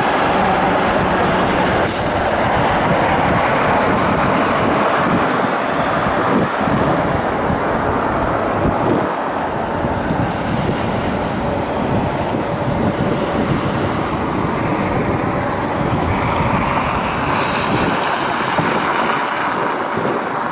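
Turbofan engines of a business jet making a steady roar as it passes on landing. A faint whine rises out of the roar in the second half.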